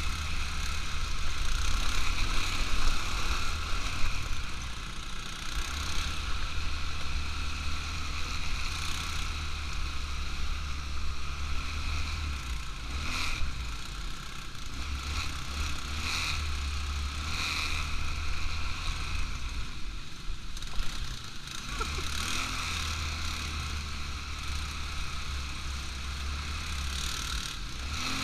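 ATV engine running steadily on the move, with wind rumbling on the microphone and a few short knocks along the way.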